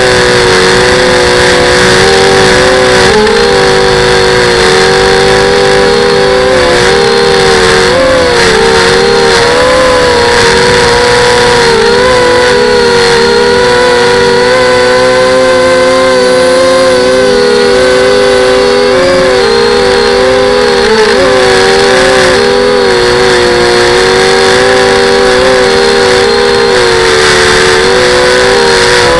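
FPV quadcopter's electric motors and propellers whining steadily in flight, close to the microphone. Several close pitches waver up and down together as the throttle changes.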